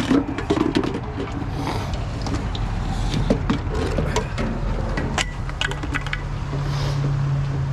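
Scrap being rummaged through by hand: scattered clinks, knocks and rattles of hard objects, over a steady low engine hum.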